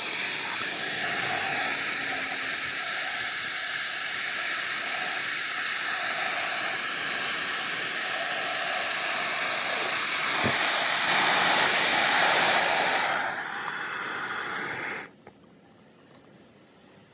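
Gas torch flame burning with a steady hiss while heating a jumper-cable lead and connector contact to melt solder. It gets louder a little past halfway, then cuts off suddenly near the end.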